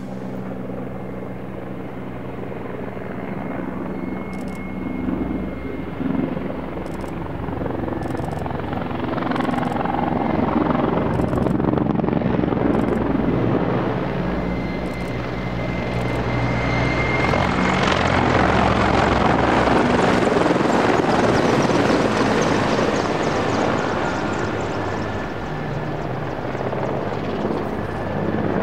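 Mil Mi-24P attack helicopter flying in, the beat of its rotor and the whine of its twin turboshaft engines growing louder as it approaches and passes close, loudest about two-thirds of the way through.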